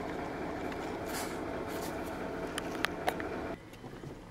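Steady hum of a car idling, heard inside the cabin, with three light clicks a little after two and a half seconds. It drops sharply in level about three and a half seconds in.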